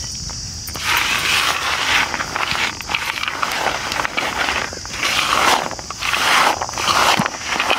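Raw peanuts coated in gram-flour and spice mix being tossed and rubbed by hand in a large metal plate: a gritty rattling scrape with each stroke, roughly one stroke a second.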